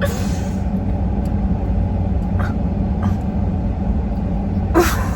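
Steady low rumble inside a car's cabin with the engine running, with a few faint clicks and a short vocal sound near the end.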